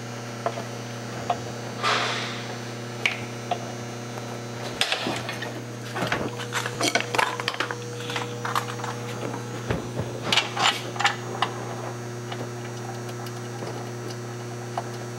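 Scattered metal clicks and knocks as a G56 manual transmission on a jack is guided up against the back of the engine onto its dowels, thickest in the middle stretch, with a brief scrape about two seconds in. A steady electrical hum runs underneath.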